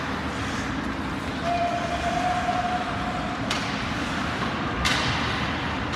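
Ice hockey rink noise, a steady rumble. A single steady horn-like tone is held for about two seconds, and two sharp knocks follow about a second and a half apart.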